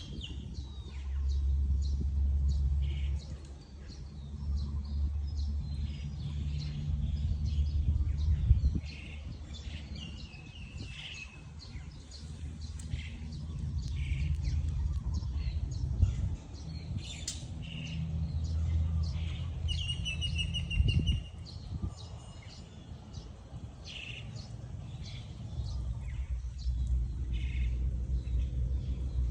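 Birds chirping and calling again and again, with a low rumble underneath that swells and fades several times.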